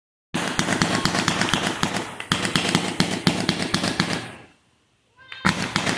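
Ground firework fountain spraying sparks, a rushing hiss thick with crackling. It runs about four seconds, dies away, then starts again after a short gap near the end.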